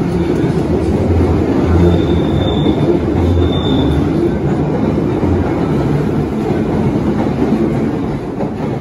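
London Underground Bakerloo line tube train running past along the platform, with a loud wheel-on-rail rumble and clatter. Two brief high wheel squeals come about two and a half and three and a half seconds in, and the noise eases a little near the end as the last car passes.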